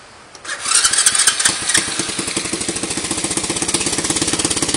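110cc semi-automatic Chinese single-cylinder engine starting up about half a second in, running unevenly for a second or so, then settling into a steady idle through a hollowed-out exhaust pipe.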